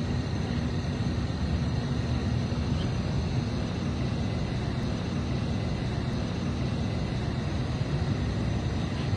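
Motorcycle engine running steadily, a low rumble.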